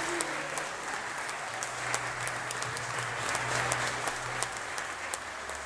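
Applause from a small congregation, many people clapping their hands at once.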